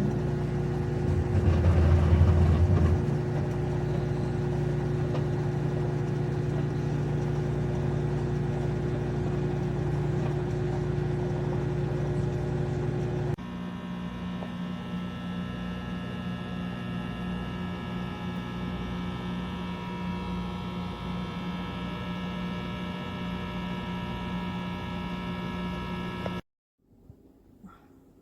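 Galanz GLCMKA07BER-07 microwave oven running: a steady electrical hum that swells briefly near the start. About halfway through it changes abruptly to a slightly quieter hum with a different pitch, and it stops suddenly near the end.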